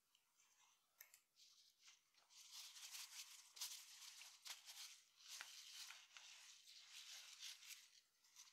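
Faint, irregular crisp scraping and rustling of food being handled in the kitchen. It starts about a second in and dies away near the end.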